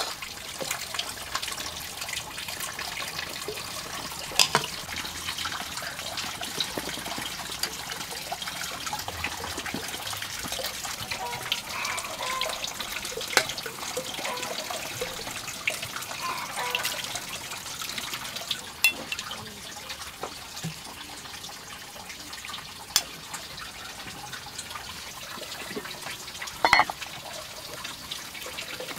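Steady trickle of running water, with a few sharp clinks of a spoon and chopsticks against bowls and a metal pot.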